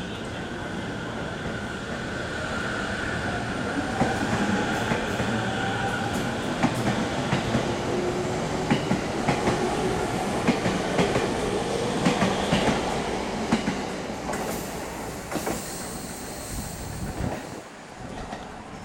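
JR E231-series electric commuter train pulling into a platform and slowing: the motor whine falls in pitch as it brakes, and the wheels clack over rail joints in a regular run of knocks. A high wheel squeal comes in near the end.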